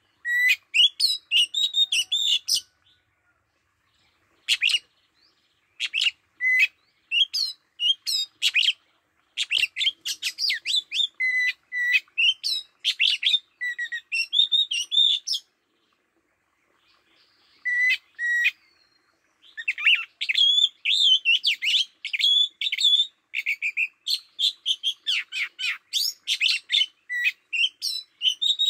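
Oriental magpie-robin singing: bouts of rapid, varied clear whistles and chirps, broken by a few pauses of a second or two.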